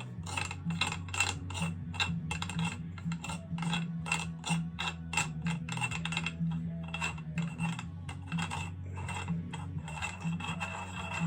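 A run of small, sharp metallic clicks and taps, about two to four a second and unevenly spaced, as the parts of a SWAT steerer-tube multi-tool are worked into place inside a bike's steerer tube. A low steady hum sits underneath.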